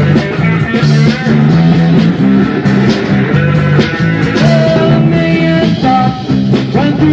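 Rock band playing, with guitar, bass guitar and drums, loud and steady.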